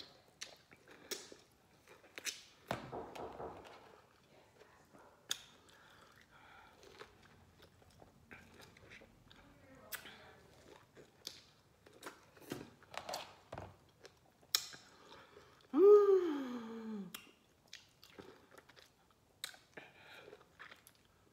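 Biting and chewing raw lemon wedges: short, irregular mouth sounds one after another. About three-quarters of the way in there is one loud, short vocal sound that falls in pitch.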